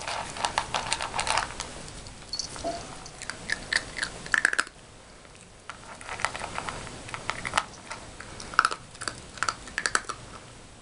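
Yorkshire terrier puppy eating dry kibble from a plastic bowl: quick runs of sharp crunching and clicking, with a short lull about halfway through.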